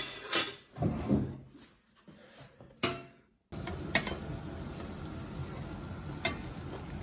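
Scattered clicks and knocks of things being handled, then after a sudden cut about halfway, a steady background hiss with a few sharp clicks.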